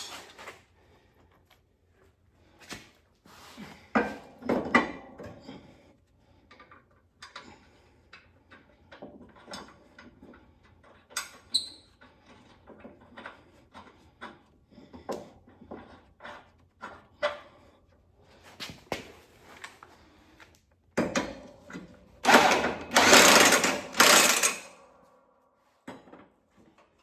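Scattered metal clinks and knocks of a mower blade, bolt and socket being handled, then, about three-quarters of the way in, an impact wrench running loudly for about two seconds on a mower blade bolt.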